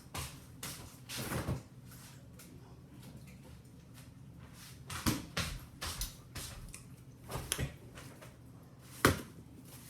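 Scattered knocks and clicks of objects being handled, the loudest a single sharp click near the end.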